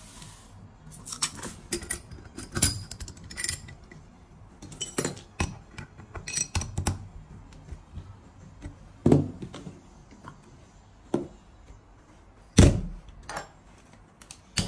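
Uncooked rice pouring with a short hiss into a small stainless-steel popcorn cannon, followed by repeated metallic clinks and clanks as its lid is clamped and tightened and the vessel is handled. A louder clank comes near the end as the cannon is set onto its stand.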